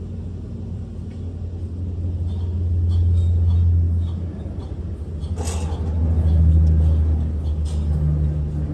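A heavy vehicle's engine running with a low rumble that swells twice, as if revved under load, with a few light knocks about halfway through.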